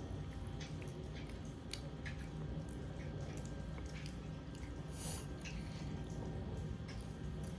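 A child chewing french fries: small wet mouth clicks and smacks, over a steady low hum.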